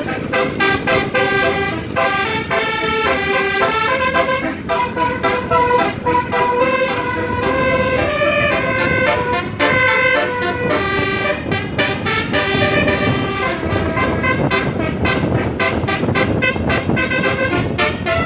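A bus's 'telolet basuri' multi-tone horn playing a quick melody of short stepped notes without pause.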